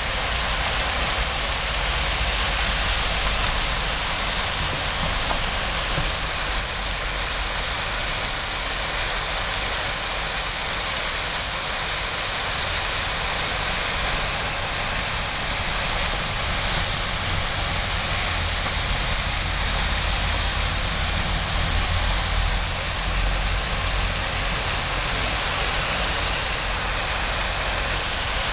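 Heavy rain pouring down in a steady hiss, with a low rumble underneath.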